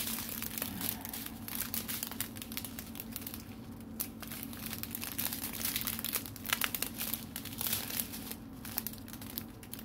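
Strips of clear plastic zip-lock bags holding diamond painting drills crinkling as they are handled and turned over, with irregular crackles and sharp ticks throughout.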